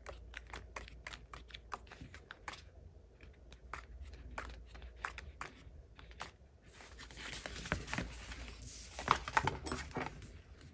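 Paper stickers being peeled from a sticker sheet and pressed onto planner pages: quiet, quick light clicks and taps, turning into paper rustling with clicks from about seven seconds in.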